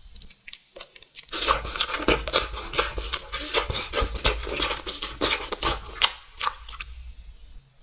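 Dense, close-miked crackling and scratching in quick crisp clicks, starting about a second in and dying away near the end.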